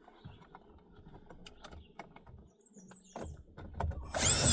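Plastic door trim panel being handled and pressed into place: scattered light clicks and knocks, then about four seconds in a loud scraping rasp with a squeak in it, lasting under a second.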